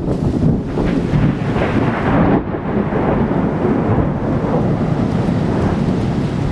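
Torrential rain pouring down in a cloudburst: a loud, dense, rushing noise with a deep rumble, like wind buffeting the microphone.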